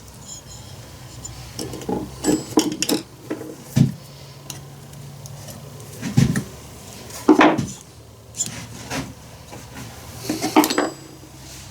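Metal chainsaw parts, the cylinder and piston, clinking and knocking as they are handled and worked together by hand, in scattered irregular knocks, the loudest about four, six, seven and ten seconds in, over a faint low hum.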